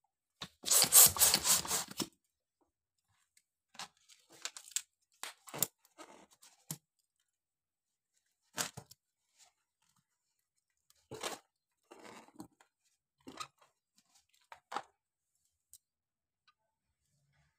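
Latex mini balloon being handled and tied off by hand: a loud rubbery rustle about half a second in that lasts over a second, then short scattered rubs and crinkles of the rubber.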